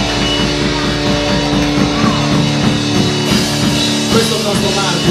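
Live rock band playing: electric guitars over bass and a fast, steady drum beat.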